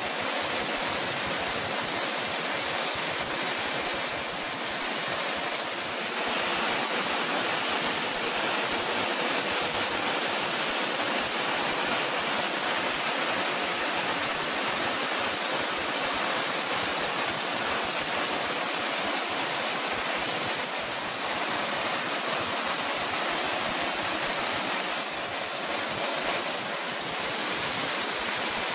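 Jet engine noise: a steady, even rush with a thin high whine running above it.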